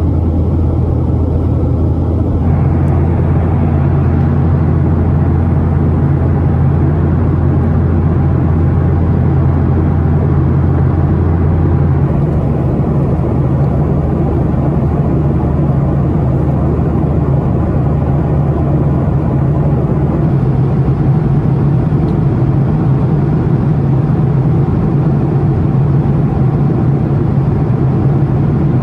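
Steady drone of jet engines and airflow heard inside the cabin of a Boeing 737-900 in flight, with a low hum under it. Its tone shifts abruptly a few times.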